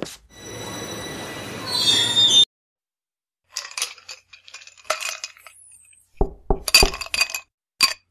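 Dubbed-in sound effects: a steady hiss with ringing tones that swells and cuts off suddenly, then scattered clinks and a quick run of sharp knocks and clatters, like glass or metal objects striking.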